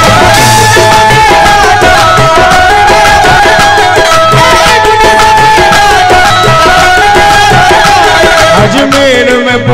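Live qawwali music: a harmonium plays a stepwise melody over a steady hand-drum rhythm, with chorus voices singing along.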